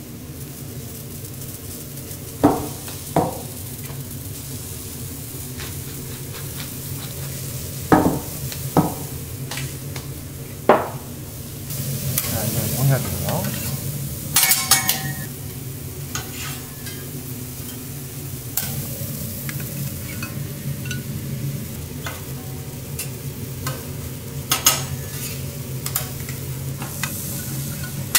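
Vegetables sizzling on a hot teppanyaki steel griddle, with sharp metal clicks and taps of the chef's utensils scattered through it, over a steady low hum.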